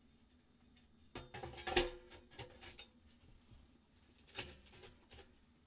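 Scattered knocks and clinks of metal as the steel chimney pipe of a small wood-burning stove is handled. There is a busy cluster with a short ring about two seconds in, then single knocks later on.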